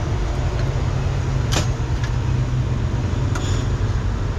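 Steady road-traffic rumble of street ambience, with a sharp click about a second and a half in and a few faint ticks later.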